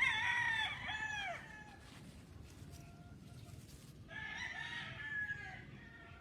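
A rooster crows loudly at the start, an arching cock-a-doodle-doo lasting about a second and a half. About four seconds in, a second, rougher and quieter fowl call follows.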